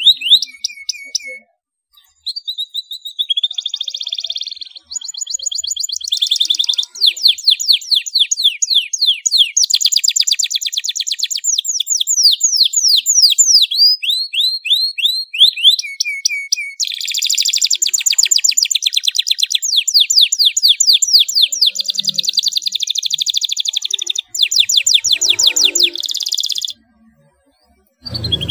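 Domestic canary singing: long runs of fast, high-pitched down-slurred chirps and dense rolling trills, broken by short pauses about two seconds in and near the end.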